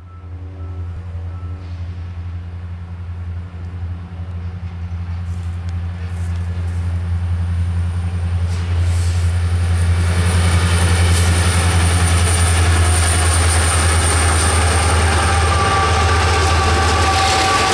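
Diesel locomotives of an empty Union Pacific coal train approaching and arriving alongside: a deep, steady engine drone that grows louder over the first ten seconds, joined by a high thin whine and rising wheel-and-rail noise as the units draw level near the end.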